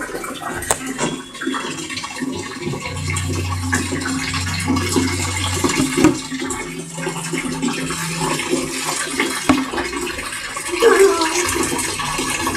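Water splashing and running while clothes are washed by hand, with scattered knocks. A low hum comes and goes in the middle.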